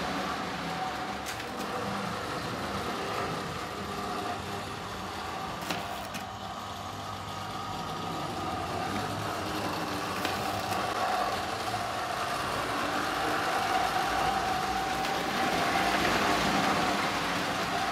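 Lionel O-gauge model trains running on three-rail tinplate track: a steady rumble of metal wheels with a held motor whine and a few light clicks. It grows louder toward the end as a locomotive passes close by.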